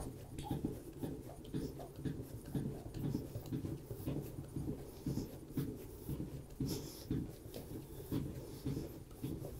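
Bread dough being kneaded by hand on a wooden board: a steady run of soft, irregular pressing thumps, about two or three a second, with faint rustling in between.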